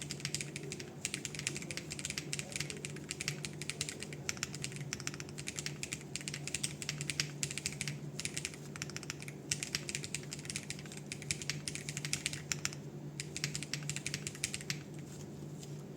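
Fast, continuous typing on a foamless hall-effect mechanical keyboard (Owlab Ti HE switches, PC plate, ABS doubleshot keycaps, Rule60 V3 case), heard through a phone microphone. The typing stops about a second before the end.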